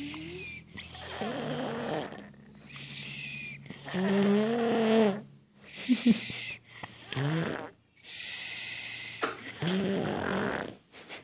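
Baby snoring: a run of about seven noisy breaths in and out, some with a wavering, rattly pitch, the loudest about four seconds in.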